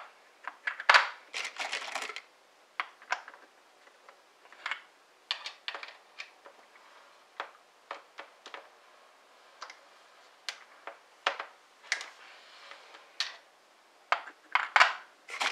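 Scattered light metallic clicks and knocks from a single-stage reloading press and brass .308 cases being handled while bullets are seated, the busiest clatter about a second in.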